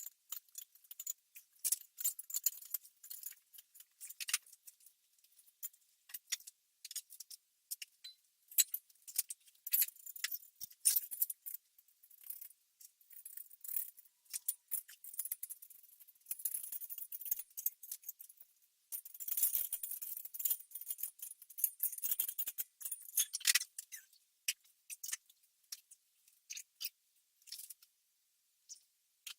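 Small metal parts and hardware being handled, a fast, irregular run of light metallic clicks and clinks with denser rattling stretches in the middle.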